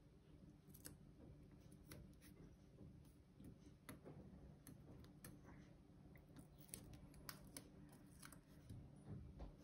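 Near silence, with faint scattered clicks and light handling noise from small die-cut card pieces being worked by hand on a tabletop.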